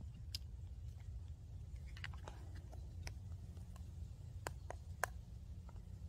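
Faint, scattered taps and clicks of a black ink pad and small rubber stamps being handled and pressed on a paper journal page, about half a dozen separate clicks over a low steady rumble.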